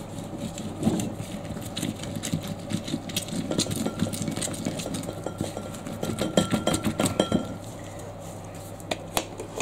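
Lemon half twisted back and forth on a plastic hand citrus reamer: rapid, irregular rubbing strokes that stop about seven and a half seconds in, followed by a couple of light knocks near the end.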